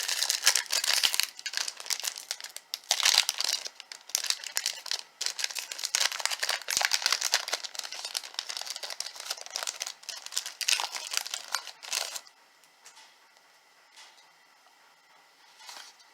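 Wrapper of a 2002 Fleer Authentix baseball card pack being torn open and crinkled, stopping about twelve seconds in, after which only faint handling sounds remain.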